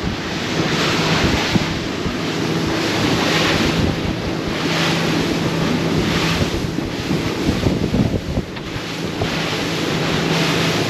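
Boat running across open water: a steady engine hum under wind buffeting the microphone and the rush of water and spray, which swells about every second and a half.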